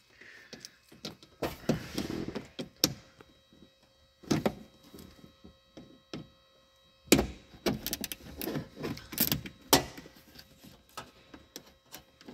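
Scattered clicks, knocks and rustles of plastic car interior trim and its retaining clips being handled and pressed into place, with a sharper knock about seven seconds in.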